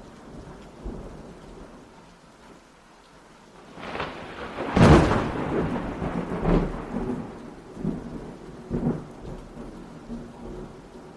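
Rain falling with thunder: a loud thunderclap builds and crashes about five seconds in, followed by smaller rumbles.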